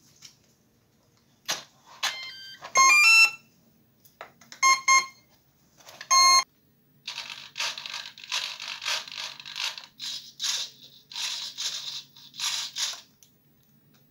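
A battery connector clicks into place. A 30 A brushless ESC then plays its power-up tones through a 2208 brushless motor: a quick rising run of beeps, then two separate short confirmation beeps, signalling the ESC is armed and receiving the transmitter signal. After that come repeated short buzzing whirs from 9 g servos, about two a second, as the control sticks are moved.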